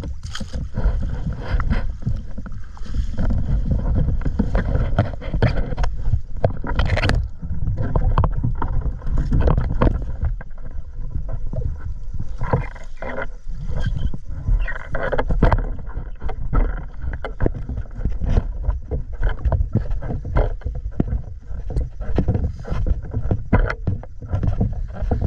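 Wind rumbling on the microphone while someone walks out of shallow seawater and across a pebbly beach, with many irregular splashing and crunching footsteps.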